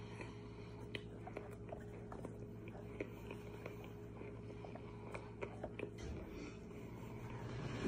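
Close-up mouth sounds of chewing a mouthful of dry raw cornstarch: faint, irregular crunching and sticky clicks, with the plastic spoon scraping in the tray, over a steady low hum.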